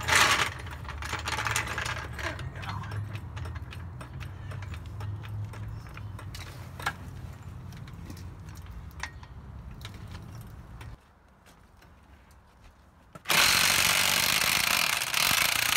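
Clicks and a low rumble as a floor jack is worked under a van. After a short pause, a corded electric impact wrench runs loudly on the wheel's lug nuts for the last few seconds, loosening them to take off a studded snow tire.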